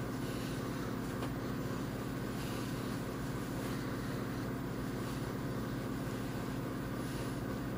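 Steady low hum with an even hiss, unchanging throughout: background room noise with no distinct events.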